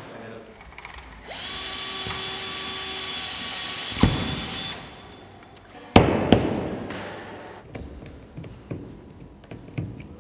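A small electric power tool's motor runs with a steady whine for about three seconds. Sharp knocks follow, one as the motor stops and two about two seconds later, each ringing on as it fades.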